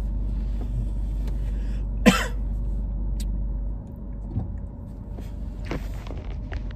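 Low engine and road rumble inside a car's cabin, which drops off about four seconds in. About two seconds in comes one short, sharp cough.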